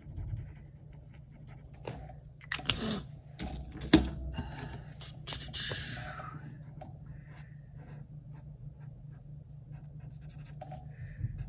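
Marker pens on paper: a few clicks and a sharp knock about four seconds in as one marker is put down and another picked up, then soft scratching strokes as the squares of a paper chart are coloured in.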